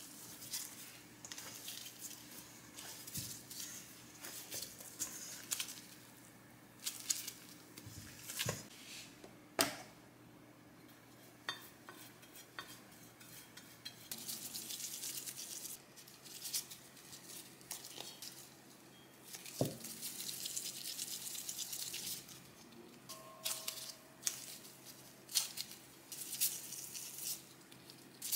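Gloved hands knead and squish sticky rice-flour dough in a stainless steel mixing bowl, with scattered knocks and clinks against the metal. Partway through, a silicone brush swishes back and forth spreading oil over an enamel tray. Near the end, dough balls are set down in the tray with soft taps.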